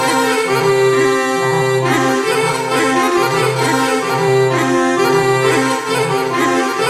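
Instrumental background music: an accordion tune with held melody notes over a steady pulsing bass.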